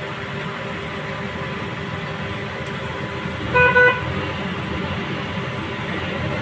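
A vehicle horn toots twice in quick succession about three and a half seconds in, over steady traffic noise.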